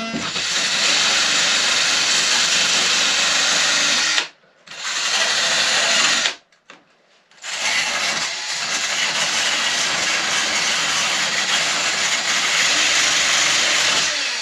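Cordless drill running under load against the hull's wooden frames, a steady whirring that breaks off briefly just after four seconds, stops again for about a second around six seconds in, and then runs on.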